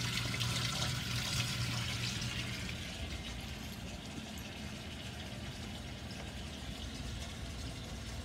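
Tap water running into a stainless steel sink as pennies are rinsed under it, fading out about three seconds in. A low steady hum carries on underneath.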